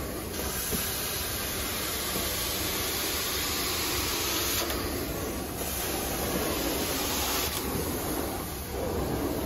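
Carpet-cleaning extraction wand working over carpet: a steady rushing hiss of suction and water spray. The high part of the hiss drops out briefly a few times between strokes.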